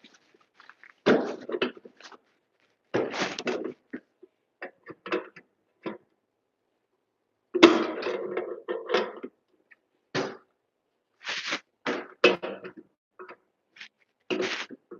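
Irregular short bursts of scraping and knocking from hand-tool work, with a sharp knock about seven and a half seconds in.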